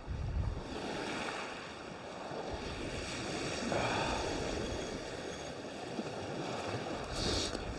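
Small waves washing onto the beach, with wind gusting on the microphone.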